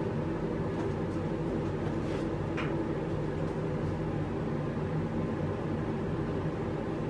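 Steady low mechanical hum, like a small motor running, with two faint ticks a little over two seconds in.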